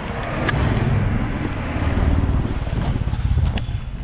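Street traffic noise with a low, choppy rumble from a handheld camera being moved about, and two sharp clicks, one about half a second in and one near the end.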